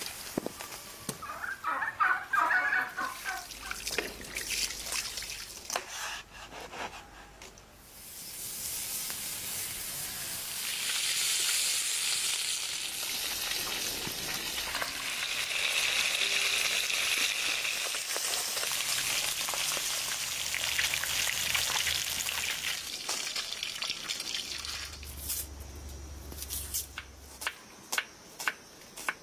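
Fish frying in hot oil in a wide pan over a wood fire, a steady sizzle through the middle. Near the end, a knife chops onion on a wooden board in even strokes, about two a second.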